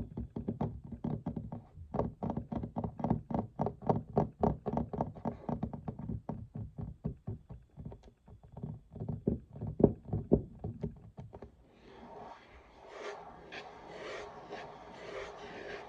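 Fingers tapping fast on a wooden desk, a quick run of light knocks, then about 11 s in the tapping gives way to scratching and rubbing on the desk surface.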